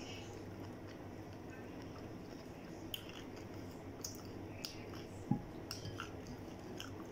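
Close-up chewing and small mouth and finger clicks while eating fried chicken, over a steady low hum. A short, dull knock sounds about five seconds in.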